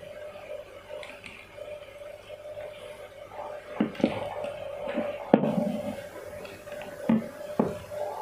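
Handling noise from a thin plastic tube being pushed along an aquarium power head's wire on a silicone work mat. Several short clicks and knocks start about three and a half seconds in, the sharpest a little past the midpoint, over a steady faint hum.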